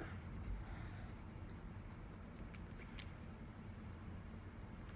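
Colour pencil rubbing on paper as an area is shaded in, over a faint low hum, with a single sharp click about three seconds in.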